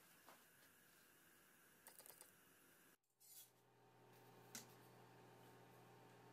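Near silence: faint room tone with a few light clicks, a quick cluster about two seconds in and a sharper single click past halfway, from a chapati being handled with tongs on a wire roti grill. A low steady hum comes in about halfway.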